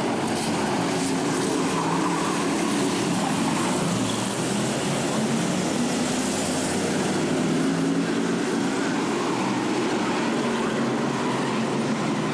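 A pack of figure-eight race cars, their engines running together as a dense, steady drone.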